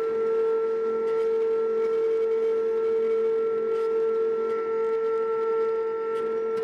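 Excavator-mounted forestry mulcher running with a steady high-pitched whine that holds one pitch, with a few faint ticks.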